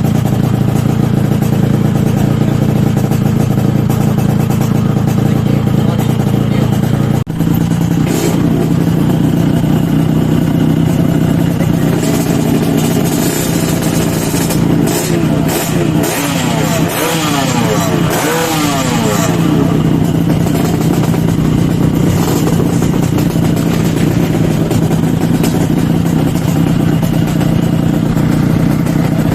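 Yamaha RX-King's two-stroke single-cylinder engine, freshly rebuilt with a new connecting rod, running steadily at idle. Around the middle it is revved up and down several times, then settles back to idle. There is a brief break about seven seconds in.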